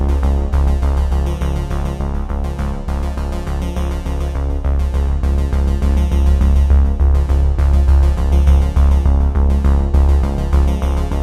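Electronic background music led by synthesizer, with a heavy bass and a steady beat.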